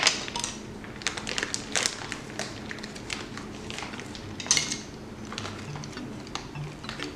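Bag of brown sugar rustling and crinkling as sugar is scooped out with plastic measuring spoons, in a run of short rustles and clicks.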